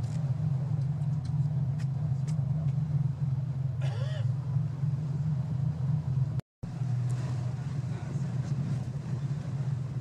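Boat engine running with a steady low drone. A short, wavering cry rises over it about four seconds in, and the sound cuts out completely for a moment about six and a half seconds in.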